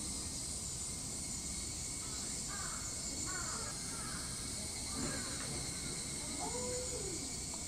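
Crows cawing several times in short calls, over a steady high-pitched drone of summer cicadas.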